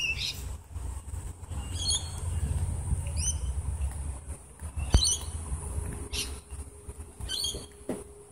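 Birds squawking and chirping in short calls every second or two over a steady low rumble, with one sharp click about five seconds in.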